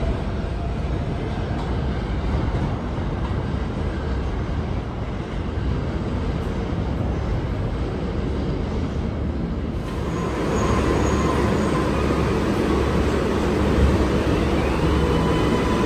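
Rumble of a 7 subway train pulling away along elevated track. About ten seconds in the sound changes to an R188 7 train at a station platform, with a steady tone and a rising whine near the end as it starts to move off.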